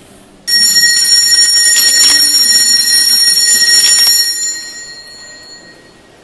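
Altar bells shaken at the elevation during the consecration. A cluster of high bells starts ringing suddenly about half a second in, keeps on loudly for about four seconds, then dies away.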